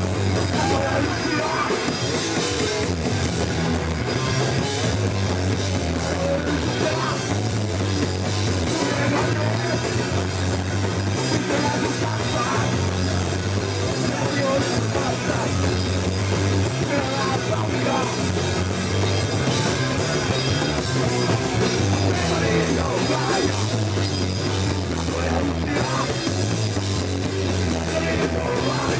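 Hardcore punk band playing a song live, loud and without a break: drum kit, electric guitar and bass.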